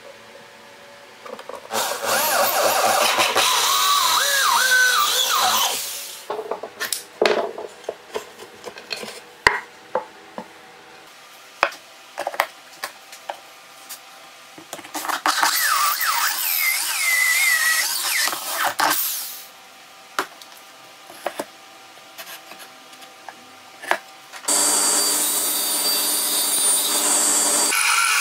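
Corded power drill boring into plywood in three runs of a few seconds each, its motor pitch wavering as the bit cuts. Between the runs there are scattered light knocks and clicks.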